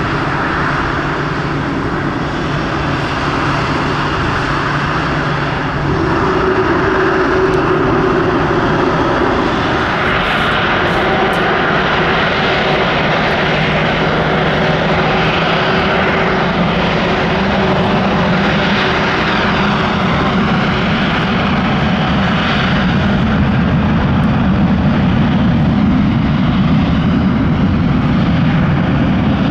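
Jet airliner engines: first a departing widebody's engines at takeoff thrust, then, after a change about six seconds in, an Airbus A330-243's Rolls-Royce Trent 700 engines running at low taxi power as it rolls towards the listener. The sound is a steady jet roar with a humming tone in it, and the low rumble grows louder near the end.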